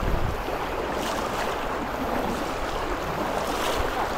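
Floodwater rushing steadily, an even wash of noise.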